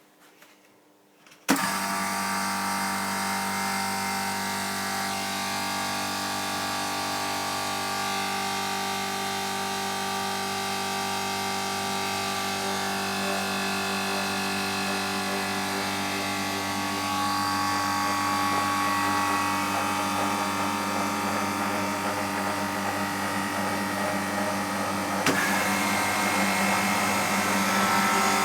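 Bristol hermetic refrigeration compressor in a condensing unit starting up about a second and a half in, then running with a steady electric hum, on a freshly rewired start circuit with new start and run capacitors. A brief click near the end.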